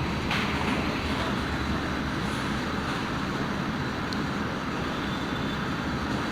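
Steady low background rumble, even throughout, with a faint click shortly after the start.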